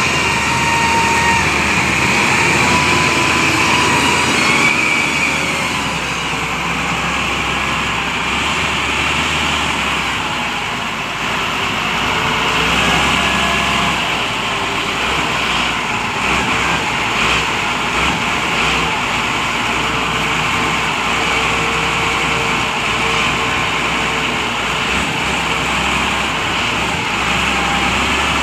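Vehicle engine running steadily, with a high whine over it for the first few seconds.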